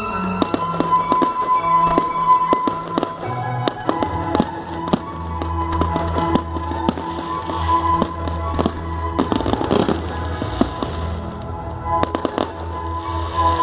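Fireworks going off in many sharp bangs and crackles, with a dense volley about ten seconds in and another burst about twelve seconds in, over steady music.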